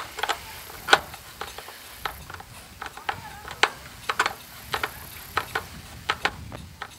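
Hand screwdriver driving a screw into a pontoon anchor mount by hand, giving sharp clicks at irregular intervals, one to three a second.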